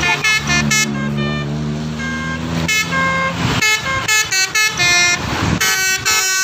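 Bus 'telolet' musical air horn playing quick runs of short notes that jump from pitch to pitch. For about the first three seconds a low steady drone and passing-traffic noise run under it, then the rapid notes come back, louder, to the end.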